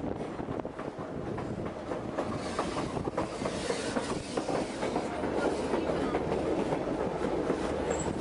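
White Pass & Yukon narrow-gauge passenger cars running on the track: a steady rumble of wheels with a quick, irregular clickety-clack from the rails. It grows louder in the second half, heard from the open platform between cars.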